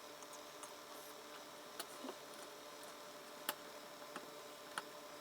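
A few faint, sharp clicks and taps of tiny digital-watch parts being handled, over a low steady hiss.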